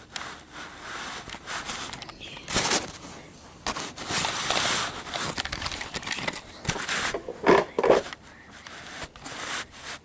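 Handling noises of small toys and props being moved about: uneven rustling and scraping with light clicks and knocks, a few louder scrapes near the end.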